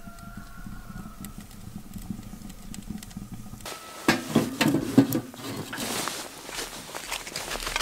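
Wood burning in a small steel ammo-can stove, with a faint distant whine at first. About four seconds in, a wooden stick is pushed into the firebox, knocking and scraping against the burning wood and steel in a quick cluster of clunks, followed by scattered crackling.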